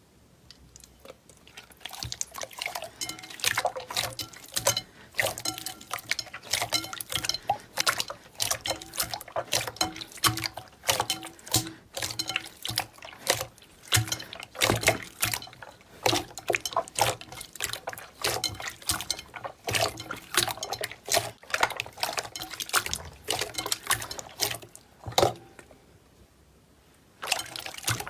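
Slime being squeezed and pressed by hand: a dense, irregular run of wet clicks and pops. It starts about two seconds in, stops briefly near the end, then resumes.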